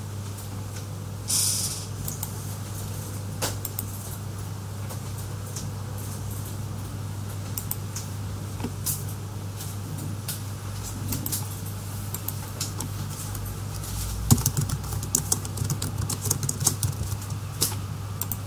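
A steady low hum with scattered sharp clicks and taps. There is a brief hiss about a second in, and the clicks grow busier in the last few seconds.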